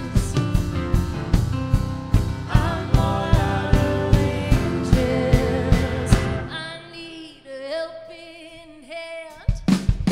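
Live band playing a song: drums, upright bass and electric guitar under a female lead vocal. About six seconds in, the band drops away and her voice carries on nearly alone, wavering. The drums come back in near the end.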